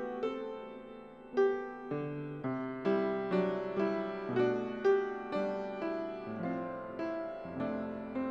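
Solo piano playing a slow, gentle piece: single notes and chords struck about once or twice a second, each left to ring and fade.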